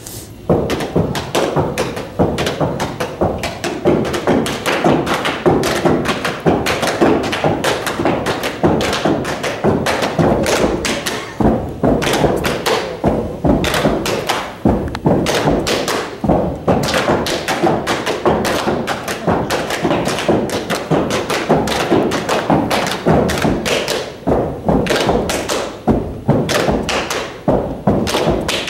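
Rapid, continuous run of thumps and taps, several a second, starting suddenly.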